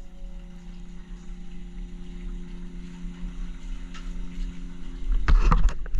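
A boat's engine running with a steady drone. Near the end comes a louder low rumble with a few knocks, and then the sound cuts off.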